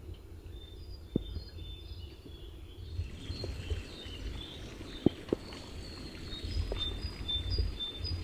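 Small birds singing, short high chirps repeated over and over, over a steady low rumble, with a few scattered sharp taps.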